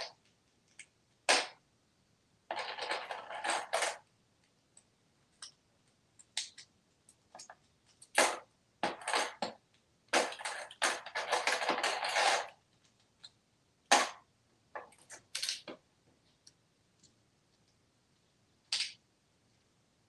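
African grey parrot rummaging through a plastic tray of toy money: toy paper bills rustle in a few longer bursts, with sharp clicks and taps scattered in between.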